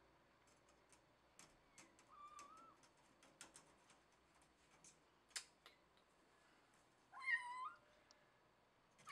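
Cat meowing twice: a short meow about two seconds in and a louder, longer one near the end. Scattered sharp clicks and taps fall between the calls, the loudest about five seconds in.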